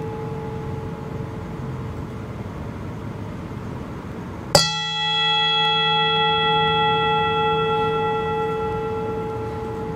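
Brass singing bowl ringing: a steady hum fading from an earlier strike, then the bowl is struck once about four and a half seconds in and rings out again with several overtones at once, slowly fading.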